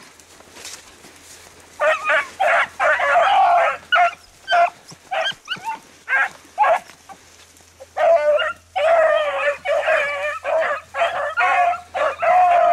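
Pack of beagles baying as they run a rabbit's scent trail, several hounds giving voice in overlapping bursts. The baying starts about two seconds in and becomes nearly continuous in the second half.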